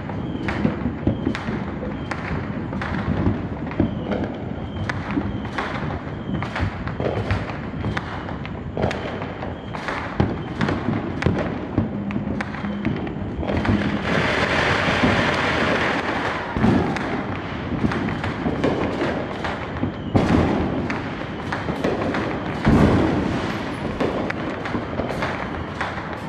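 Many backyard fireworks going off at once: a constant barrage of bangs and thuds, two or three a second, with a stretch of loud hissing crackle lasting about three seconds just past the middle.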